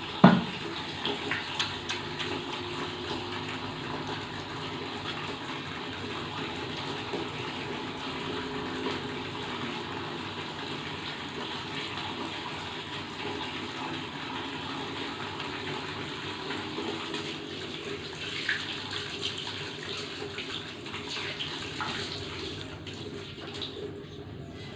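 Water running steadily from a tap while hands are washed, with a sharp knock right at the start and a few light clicks later. The hiss thins out just before the end.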